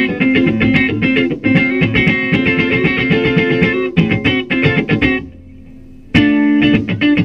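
Electric guitar playing a run of quick picked notes, breaking off about five seconds in, then a loud held chord about a second later.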